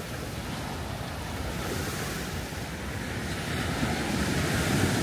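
Ocean surf washing onto a sandy beach, with wind buffeting the microphone; the surf swells louder about four seconds in.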